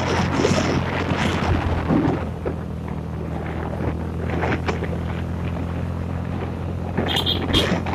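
Motorbike engine running steadily under way, with wind buffeting the microphone. Two short, sharp high-pitched sounds come close together near the end.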